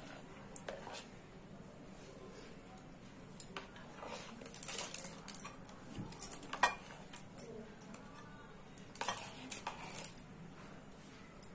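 Spoon scraping and clinking against a plastic bowl while whipped cream is scooped into a plastic piping bag, with light rustling of the bag. Faint, scattered scrapes and clicks, busiest from about four seconds in.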